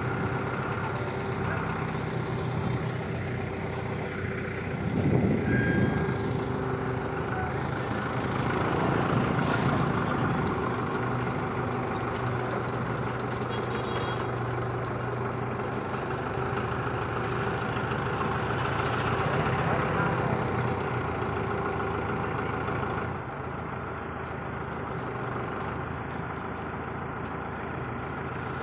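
Mobile hydraulic crane's diesel engine running steadily, swelling louder a few times and settling lower about 23 seconds in.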